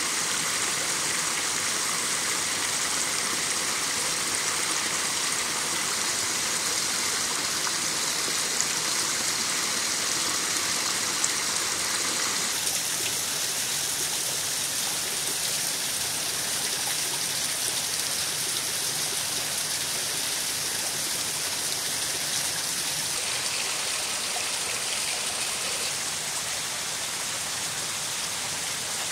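Small waterfall splashing steadily into a forest stream, a continuous rushing hiss whose tone shifts slightly about twelve seconds in.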